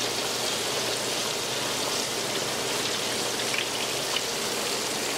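Battered fish deep-frying in hot oil in a wok: a steady, dense sizzle, with a couple of small pops near the end.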